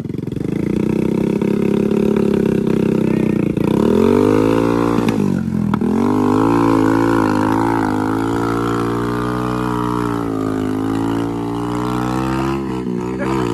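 Small single-cylinder commuter motorcycle engines running hard under load while one bike tows another out of deep mud on a rope. The engine note climbs about four seconds in, drops sharply for a moment a little later, then rises and falls as the throttle is worked.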